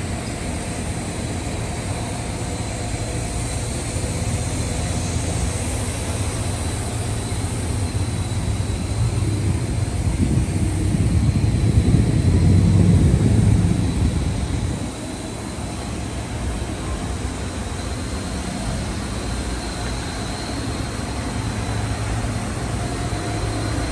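A motor running steadily with a thin high whine over a deep roar, getting louder for a few seconds around the middle and then settling back.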